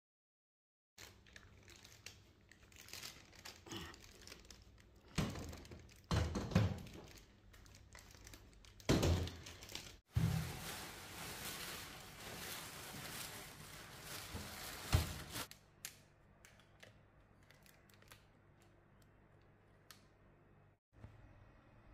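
Plastic bags crinkling and rustling around suitcases as the cases are handled, with several heavy thumps of the suitcases being moved and set down. After about fifteen seconds it goes quieter, with a few light clicks.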